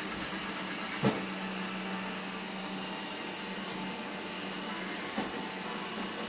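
Xiaomi Mi robot vacuum running with a steady whir. There is a sharp knock about a second in and a fainter one about five seconds in.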